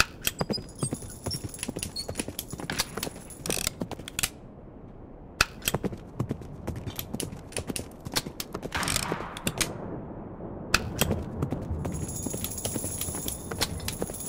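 Sound effects of the Dead or Alive 2 video slot: the reels spin three times, each spin a rapid clatter of clicks and knocks ending as the reels stop, with a short pause between spins.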